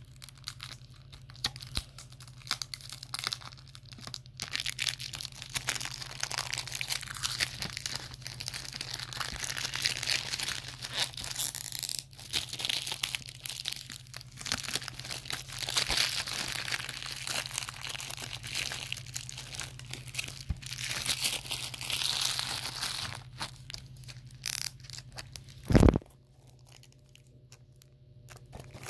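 Plastic shrink wrap being torn and peeled off a DVD case, a long run of crinkling and crackling. Near the end comes a single loud thump, the loudest sound.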